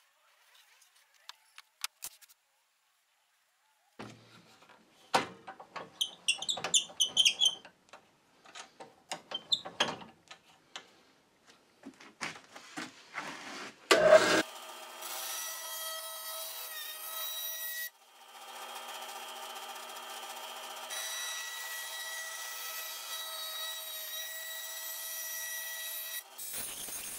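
Pencil scratching and small taps of a steel rule while a pattern is marked out. Then a bandsaw runs with a steady whine of several pitches as it cuts a paper-covered pattern board, breaking off briefly once.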